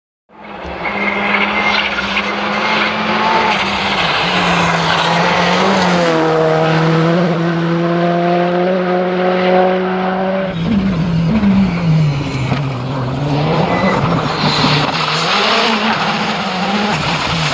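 Škoda Fabia rally car's turbocharged 1.6-litre four-cylinder engine driven hard on a stage, its revs rising and falling through gear changes. The engine note drops in pitch as the car goes by, and about ten seconds in it jumps to another pass.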